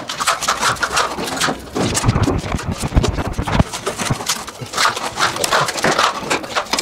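Steel plastering trowels spreading thick decorative plaster over a wall, in quick, irregular scraping strokes, with some dull low knocks around the middle.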